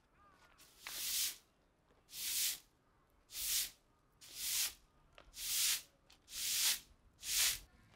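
A broom sweeping the ground in seven steady swishing strokes, about one a second.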